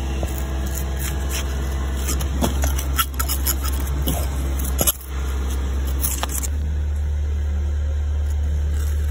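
Metal jointing tool scraping and raking along fresh cement-and-sand mortar joints between sandstone blocks, a run of short scratchy scrapes that stop about two thirds of the way through. A steady low hum runs underneath.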